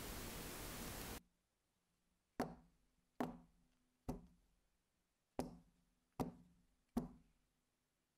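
A baking tray of piped macaron batter rapped six times against the counter, in two sets of three, each knock with a short metallic ring. This is the usual tapping to knock air bubbles out of the batter. A steady hiss cuts off just over a second in, before the knocks.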